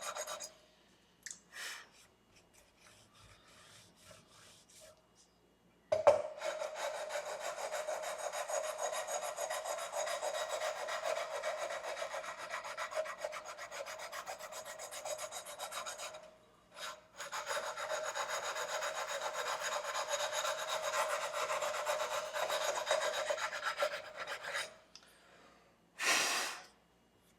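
Sandpaper on a fret levelling bar rubbed back and forth across the guitar's metal frets in quick strokes, levelling uneven frets. It runs in two long stretches with short pauses between them, and there is a brief whoosh near the end.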